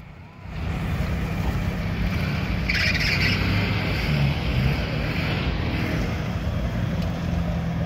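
Off-road vehicle's engine running at low revs as it drives off through mud, with a short high-pitched squawk about three seconds in.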